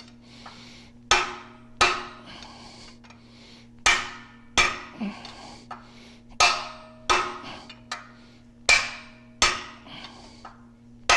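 A hammer striking a long steel drift rod, metal on metal, driving a bearing race out of a tractor transmission. The blows come in pairs about three-quarters of a second apart, a pair every two to three seconds, each with a short metallic ring.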